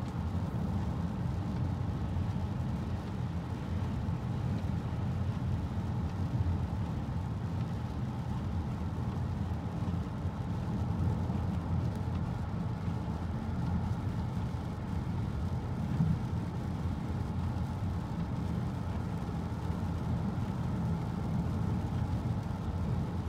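Steady road noise inside the cabin of a 2018 Honda Accord Sport 1.5 cruising on a rain-soaked road: a low rumble of tyres on wet pavement mixed with the noise of water on the road.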